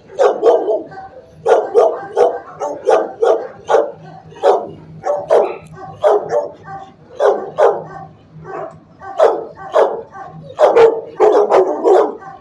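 Shelter dogs barking repeatedly, a sharp bark or a quick pair of barks about every second.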